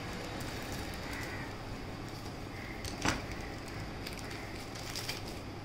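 Scissors snipping open a thin plastic accessory bag, then the plastic crinkling and rustling as hands unwrap a cable from it. One sharp clack about three seconds in is the loudest sound.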